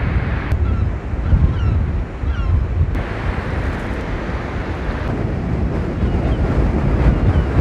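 Wind buffeting the microphone over surf breaking on the beach, with a flock of birds calling in short, repeated chirps.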